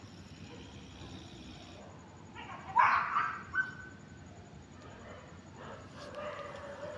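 A dog barking a few quick times about three seconds in, over faint background noise.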